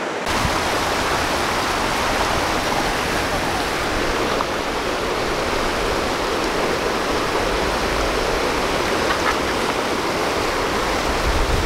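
Fast river water pouring over a low concrete weir, a steady rushing noise.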